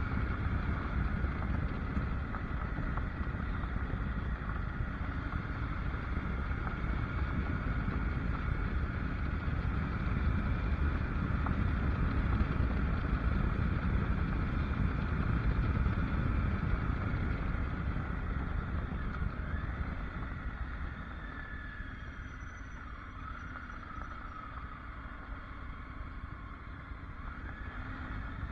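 Triumph Tiger motorcycle's three-cylinder engine running under way on a gravel road, with wind noise on the camera; the sound eases off in the second half as the bike slows down.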